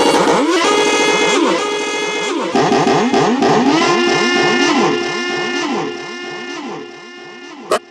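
Ahooga vintage car horn sounding over and over in quick overlapping honks, each one sweeping up in pitch, holding and sliding back down. The honks thin out and fade over the last couple of seconds, and a sharp click comes near the end.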